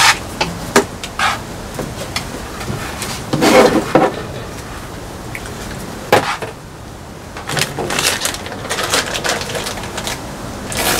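Hands working plumbing fittings and hoses: scattered clicks and knocks with bursts of rustling, the longest about three and a half seconds in.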